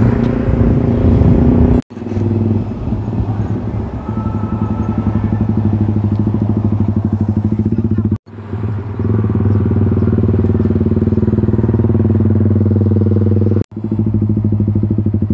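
Motorcycle engine running at a steady speed close by, with an even, unchanging note. The sound cuts off abruptly for a split second three times.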